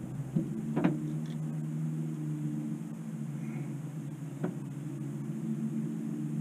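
Boat motor running with a steady low hum, interrupted by two short light knocks about a second in and again after four seconds.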